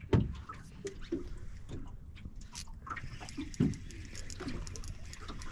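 Small waves lapping and slapping against the hull of a small boat sitting still on choppy water, with scattered knocks, the loudest just after the start and about three and a half seconds in.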